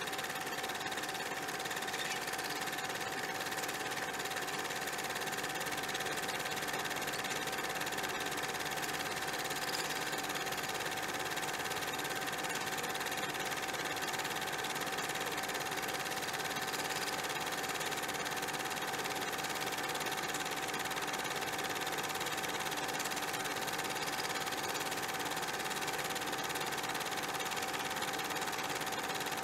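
A steady mechanical whirring with a constant hum in it, unchanging throughout.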